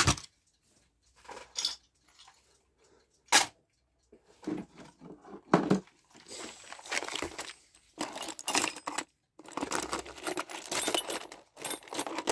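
Small metal clock parts clinking and rattling as they are sifted by hand in a plastic compartment box, in irregular bursts, with one sharp click about three and a half seconds in and denser clatter over the last few seconds.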